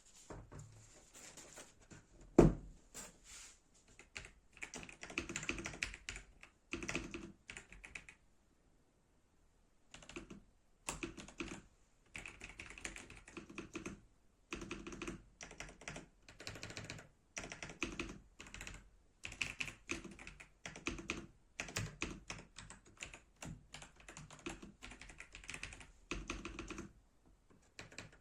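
Typing on an Ajazz AK820 Pro gasket-mount mechanical keyboard: quick runs of key clicks in bursts, with a pause of about two seconds some eight seconds in. One sharp, much louder knock about two and a half seconds in.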